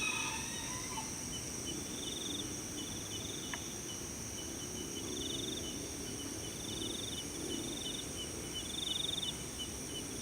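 Night insects such as crickets keep up a steady high-pitched drone, with short pulsed trills coming every second or two and a run of quick, evenly spaced chirps.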